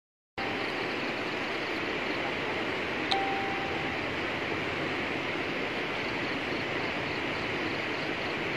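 Muddy floodwater rushing in a torrent, a steady, even rush that cuts in about half a second in. A short high beep sounds once, about three seconds in.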